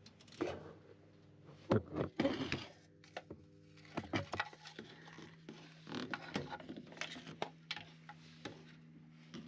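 Irregular wooden knocks, clatters and scrapes, the loudest a cluster about two seconds in, as boards or gear are handled in a cramped boat engine room, over a steady low hum.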